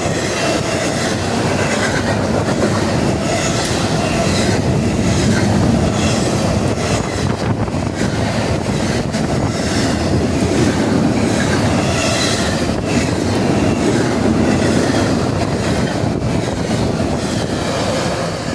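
Freight train cars rolling past, steel wheels clacking over the rail joints with intermittent wheel squeal; the noise falls off at the very end.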